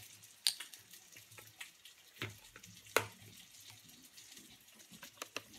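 Plastic screw cap being twisted open on a carton of almond milk: a few sharp separate clicks, the loudest about three seconds in, over a faint low hum.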